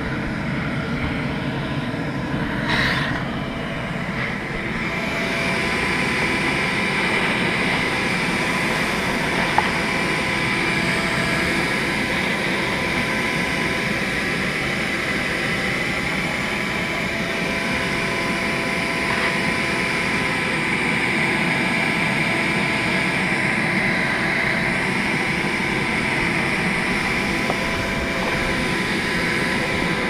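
Loud, steady buzzing drone of a mass of honeybees in and around an opened wall cavity, with a brief knock or two as the wall is worked.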